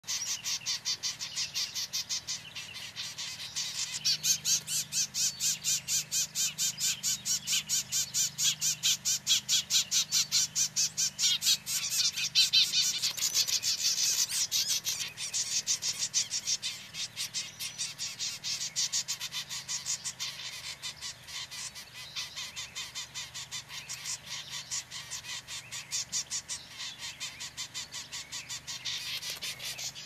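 Rapid, steady pulsing animal calls, about six pulses a second, growing louder around the middle and easing off later, over a faint low hum.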